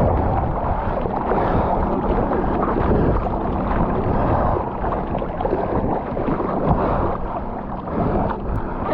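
An engine running, heavily covered by wind rumbling on the microphone.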